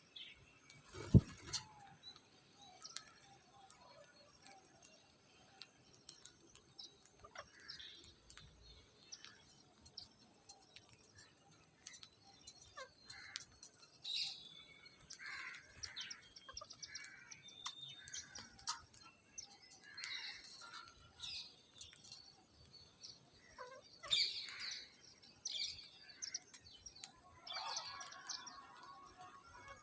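Parrots chirping in short, scattered calls. A single sharp knock comes about a second in.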